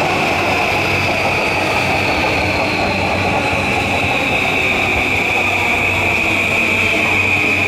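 Electric commuter train running alongside the station platform: a steady run of wheel and running noise with a high whine and tones that slowly fall.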